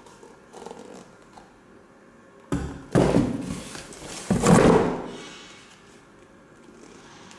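Pairs of used leather shoes knocking and scraping against a cardboard box as they are handled: a sudden bout of thuds and rubbing about two and a half seconds in, and another about four and a half seconds in as a pair of black shoes is lifted out.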